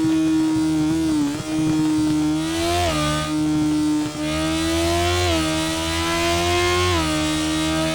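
Sport motorcycle engine pulling hard under acceleration, its note climbing steadily and then dropping sharply at each upshift, several times over, with wind and road noise underneath.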